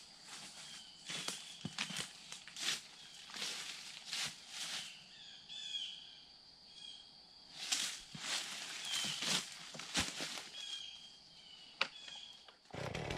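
Footsteps in forest leaf litter, with a steady high insect drone and short repeated bird chirps behind them. A chainsaw engine starts up just before the end.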